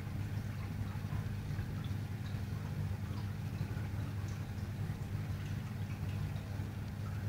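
Steady low hum of running aquarium equipment, with faint dripping and trickling of water.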